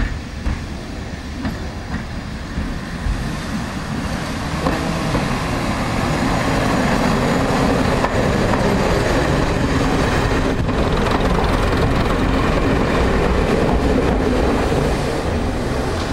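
Class 122 single-car diesel railcar (a 'bubble car') approaching and passing close by: its diesel engine sound builds over the first six seconds and then stays loud as it goes past. A few sharp clicks from the wheels on the rails come in the first three seconds.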